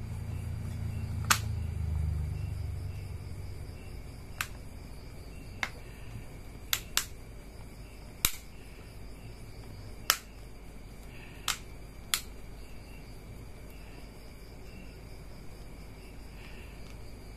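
Sharp plastic clicks, about nine at uneven intervals, as the back cover of an Infinix Note 7 Lite phone is pressed and snapped into place around its frame, after a low rumble of handling in the first couple of seconds.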